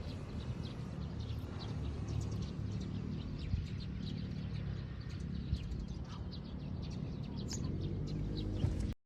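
Birds chirping repeatedly over a steady low rumble of wind on the microphone; the sound cuts off abruptly near the end.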